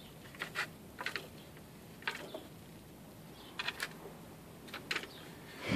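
Cats batting and pawing at a round plastic track toy with a scratch pad: short scratchy clicks and taps, often in quick pairs, about once a second, the loudest near the end.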